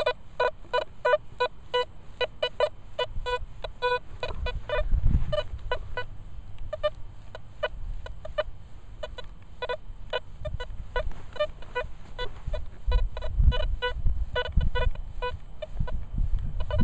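Nokta Velox One metal detector giving rapid short beeps of tone, several a second and at slightly differing pitches, as its coil is swept over the ground. Low rumbles come in about five seconds in and again near the end.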